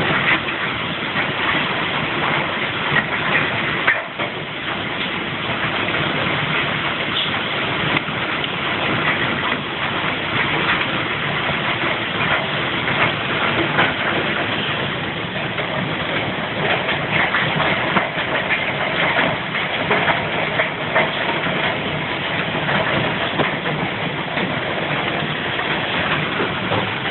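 Severe storm wind blowing hard with heavy rain: a loud, unbroken rush of noise with many small gusty peaks.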